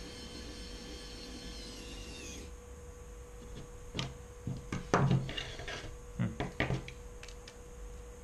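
Xiaomi Wowstick 1P cordless electric precision screwdriver running with a high whine as it drives a small screw into a carbon drone frame, cutting off about two and a half seconds in. Then a series of sharp knocks and clicks from the frame and tool being handled on the wooden table.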